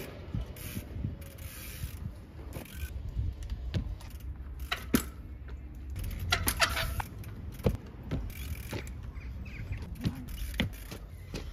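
Trials bike hopping and balancing on a steel railway rail: a run of sharp clicks and knocks as the tyres and pedals land on and strike the rail, with a short squeal a little past halfway.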